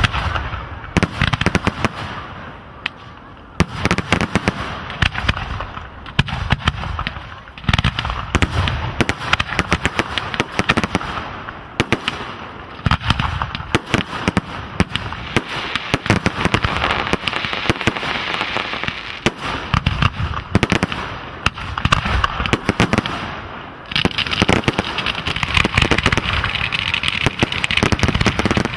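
Fireworks display: a rapid, continuous barrage of bangs and cracks, turning into a denser crackle near the end.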